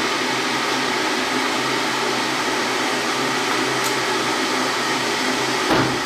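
Electric water boiler heating water: a steady rushing hiss with a faint hum under it, and one short knock near the end.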